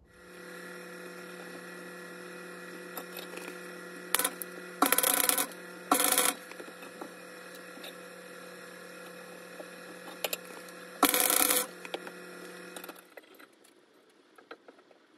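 A steady electrical hum with four short, loud bursts of noise, which stops about 13 seconds in; then faint clinks of steel nuts being set down on a steel plate.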